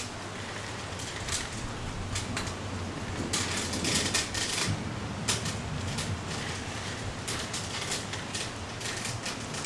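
Gusty storm wind rustling tree leaves in irregular bursts, busiest a few seconds in, over a steady low hum.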